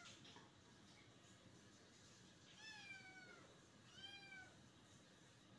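A kitten meowing faintly twice, each meow sliding down in pitch. The first, about two and a half seconds in, is the longer one; the second follows about a second later.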